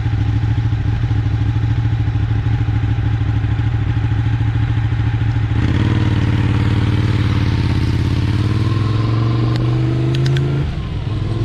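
Ride noise from an e-bike in motion: a steady low hum with rumble, which changes about halfway through to a hum that slowly rises in pitch, with a short dip near the end.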